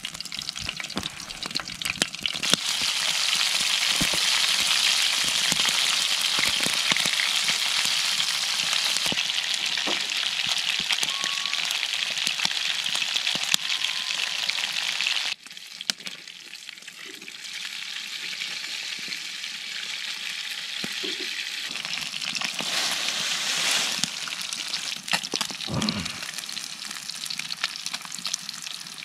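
Pieces of walleye fillet sizzling as they fry in a pan, a steady hiss with scattered light clicks. The sizzle drops abruptly about halfway through, then builds again.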